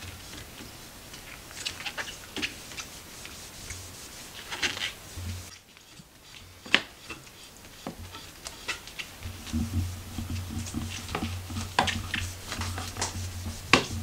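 Cloth wiping and rubbing along painted wooden banister spindles, in short scratchy strokes with sharp clicks and knocks. A low steady hum comes in underneath about two-thirds of the way through.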